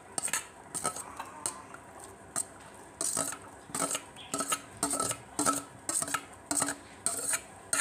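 A spoon scraping and knocking against a stainless steel bowl as chopped onion is scraped out of it: a run of short metallic clinks, sparse at first and about two a second from roughly three seconds in.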